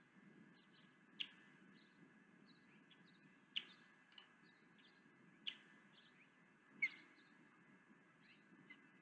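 Osprey giving short, sharp, high-pitched chirps, four strong ones spaced about two seconds apart, with fainter chirps between, over a low steady background rumble.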